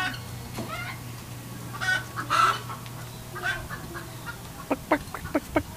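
Chickens clucking in short, scattered calls, ending in a quick run of clucks near the end.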